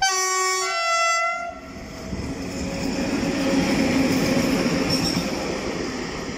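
ET22 electric locomotive running light through a station. Its horn sounds two notes, a lower then a higher, for about a second and a half. Then comes the rumble and wheel noise of the locomotive passing close, loudest about four seconds in and fading toward the end.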